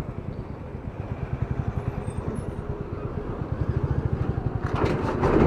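Motorcycle engine running at low speed with an even beat, heard from the rider's seat. A louder rush of noise comes in near the end.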